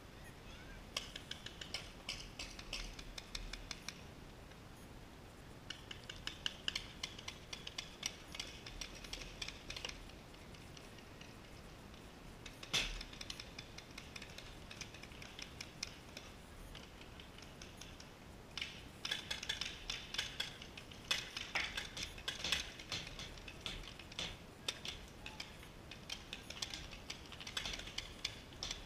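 Paintball markers firing in rapid strings of pops across the field. There are several volleys of a few seconds each, a single sharp shot about halfway through, and a longer, denser exchange of fire through most of the last third.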